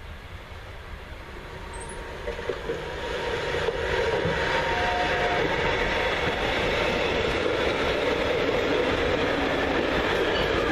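Electric locomotive hauling a long container freight train passing close by: the sound grows over the first four seconds as the locomotive comes past, then the container wagons roll by steadily.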